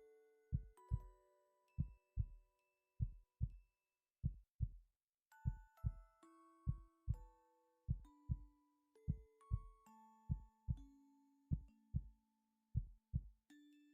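A human heartbeat picked up close and amplified: paired low lub-dub thumps about once a second. Music of slow, held notes plays along with it.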